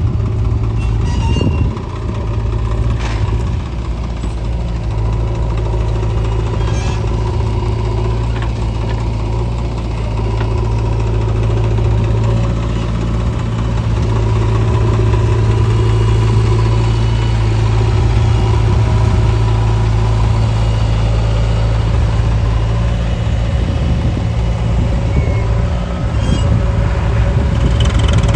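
Heavy diesel engine running steadily at an even pitch, with a few brief metallic clanks in the first several seconds.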